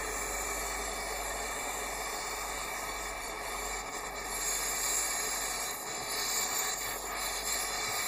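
Gas brazing torch flame hissing steadily while it heats a copper pipe joint for brazing with copper-phosphorus filler. The hiss swells slightly a couple of times around the middle.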